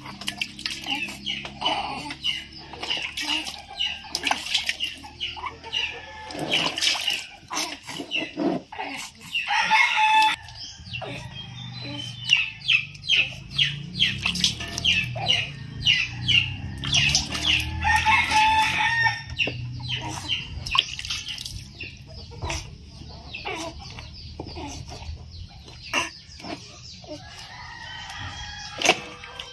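Chickens clucking in short, repeated calls, with a rooster crowing about ten seconds in and again a little later.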